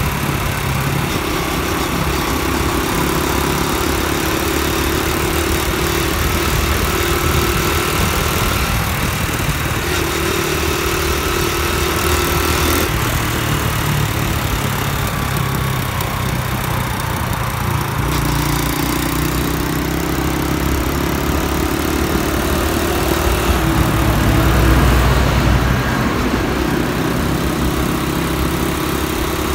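Honda Dream motorbike's single-cylinder engine running while being ridden, its pitch stepping up and down a few times as speed changes, with rushing wind and road noise over it.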